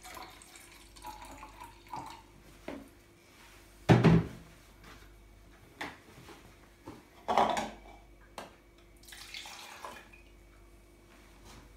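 Water trickling as it is poured from a plastic jug into a small plastic measuring cup. Plastic containers knock on the worktop twice, at about four seconds and seven seconds. A second short pour comes near the end.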